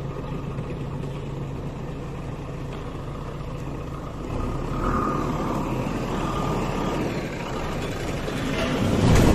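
JCB 3DX backhoe loader's diesel engine running as the machine drives by with a loaded front bucket. It gets louder about four seconds in and again near the end as the machine comes close.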